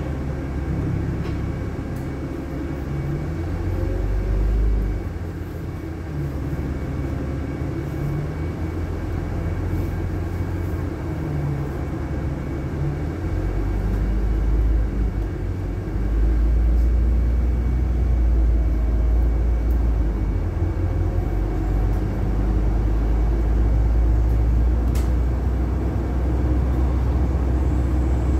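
Interior sound of a LiAZ-6213.65 articulated city bus under way: a steady low engine and road rumble. The rumble grows louder and deeper about halfway through.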